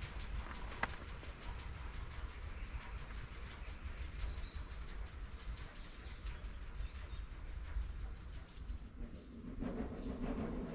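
Woodland ambience: a few short, high bird chirps over a steady low rumble. Near the end a louder, deeper rumble sets in.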